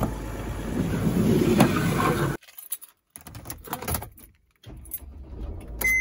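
A camper van's door opened with a sliding rush and a knock, then keys rattling and clicking in the ignition, with a short beep near the end.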